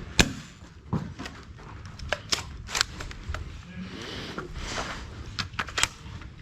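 Irregular sharp clicks and knocks, over a dozen at uneven spacing, from Nerf foam-dart blasters being worked and fired, with darts striking around the room.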